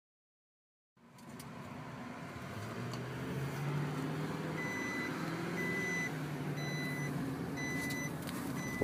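Low vehicle cabin rumble fading in after about a second of silence. From about halfway through, an electronic warning beeper sounds a short high beep about once a second.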